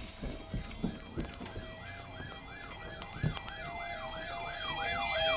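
Electronic emergency-vehicle siren in fast yelp mode, its pitch sweeping up and down about three times a second and slowly growing louder, with a few low knocks in the first half.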